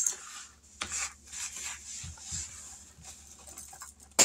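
Papers, envelopes and cash being gathered and shuffled on a tabletop, rustling and scraping, with a sharp tick near the end as a paper clip drops.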